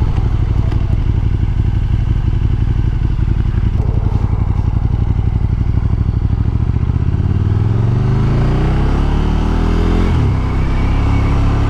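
Motorcycle engine loping at low revs, then accelerating with its pitch rising from about two-thirds of the way in. The pitch drops abruptly at a gear change near the end, and the engine pulls on steadily in the next gear.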